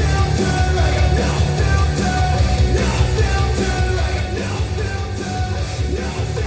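Rock song with singing and a heavy bass line, played back through a Yamaha NS-SW100 subwoofer and Elac Debut 5.2 bookshelf speakers in a sound test.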